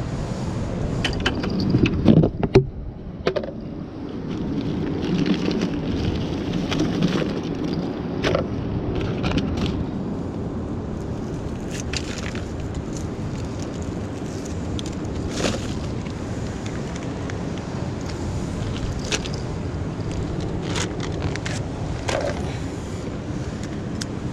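Steady low rumble of wind on the microphone and ocean surf, with scattered sharp clicks and rustles as plastic bait bags and tackle containers are handled. A cluster of louder knocks about two seconds in.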